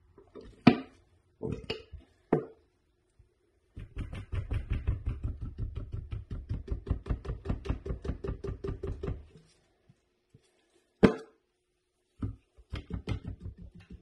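Knocking in a metal bucket as resin is poured and mixed in it with a plastic knife. A few separate knocks come first, then about five seconds of rapid, even knocking at roughly five strokes a second. One sharp knock and a quicker cluster of knocks follow near the end.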